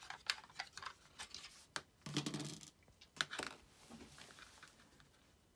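Small clicks, scrapes and rattles of a hex key working the screws and the plastic housing of a racket-stringing tension head being taken apart by hand, with a brief rustling scrape about two seconds in.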